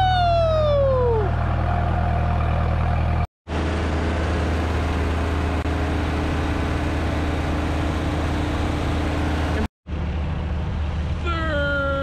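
A man's loud yell, one long call falling in pitch, over the steady low drone of a running engine. The engine drone continues, broken twice by brief dropouts to silence.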